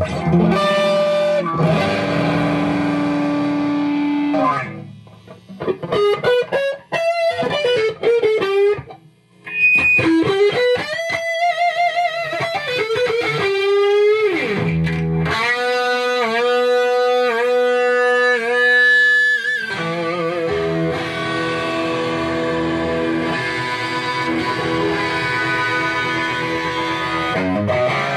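Electric guitar with PAF-style humbucking pickups played through a cranked tube amplifier running on reduced line voltage from a variac, with a saturated, distorted tone. First come held chords for a few seconds, then a single-note lead line with string bends and wide vibrato on long notes, then chord riffing again over the last third.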